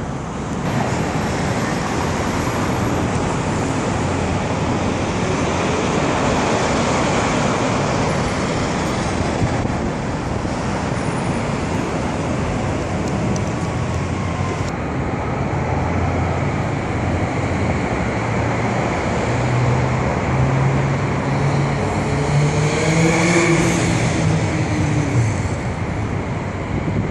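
Steady road-traffic noise. About twenty seconds in, one vehicle's engine rises in pitch as it accelerates past, loudest a little later, then fades.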